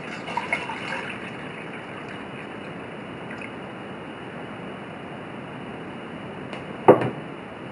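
Tap water being poured into a small stainless steel mug, a steady splashing fill. A single sharp knock comes about seven seconds in.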